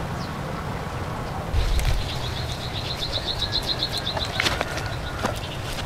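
A high, rapid chirping trill from a small wild animal, lasting about three seconds, over a steady low rumble. A few sharp clicks come near the end of the trill.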